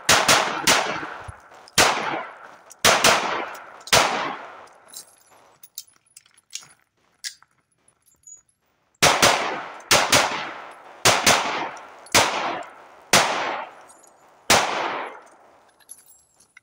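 CZ P01 9mm pistol fired in two rapid strings of shots, each crack trailing off in a short echo. Between them comes a pause of about five seconds with faint clicks: a slide-lock emergency reload.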